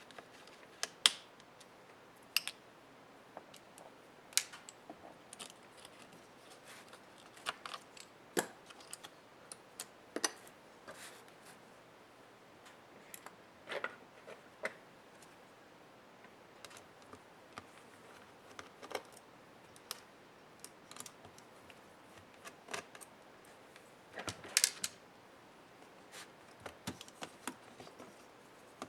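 Scattered small clicks and taps at irregular intervals, with a short cluster of them near the end: hand tools and plastic parts of a laptop being handled during disassembly.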